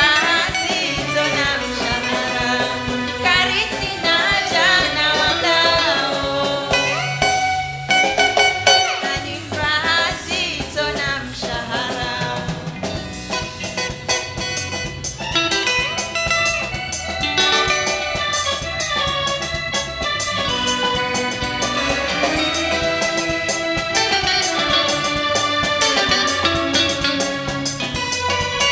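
Live Comorian taarab band music: singing over guitar and drum kit. A fast, even percussion beat comes in about halfway.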